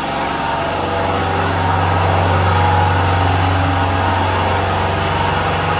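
An engine or motor running with a steady low hum.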